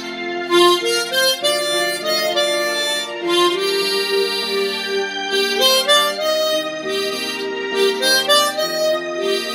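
Harmonica playing a slow melody of held notes, moving from one note to the next every half second to a second or so.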